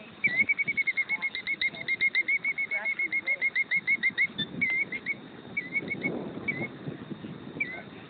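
Killdeer calling in alarm beside its nest of eggs during a broken-wing distraction display: a fast run of short, high, repeated notes, about seven or eight a second, for roughly four seconds, then a few separate calls.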